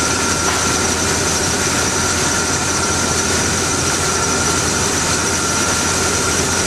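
1987 GMC pickup's engine idling steadily, with a steady high-pitched whine over the running.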